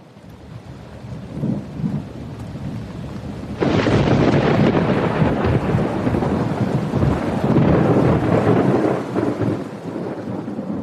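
Thunderstorm sound effect: rain noise building, then a loud rumble of thunder breaking in suddenly about three and a half seconds in and easing near the end.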